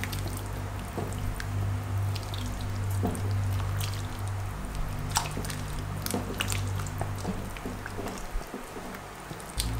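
A spatula stirring a thick coconut-milk curry in a pan: wet liquid stirring sounds with scattered sharp clicks of the spatula against the pan. Background music with steady low bass notes plays underneath.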